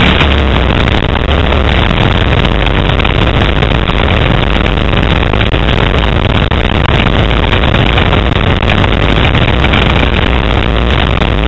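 Motocross bike engine running steadily under throttle, buried in heavy wind rush on the microphone of a camera riding on the bike.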